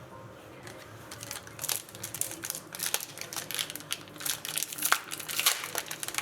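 Plastic card-pack wrapper crinkling as it is handled and opened, irregular crackles starting about a second and a half in.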